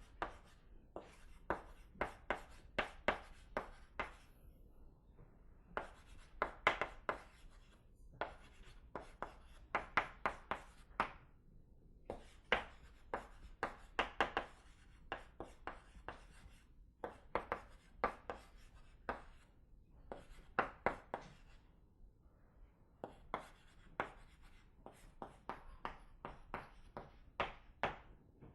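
Handwriting: quick, sharp writing strokes in clusters of several, broken by short pauses.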